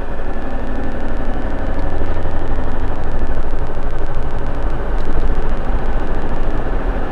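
Steady in-cabin road noise of a car driving along a sealed country road: a low engine and tyre rumble with a hiss above it, growing a little louder over the first few seconds.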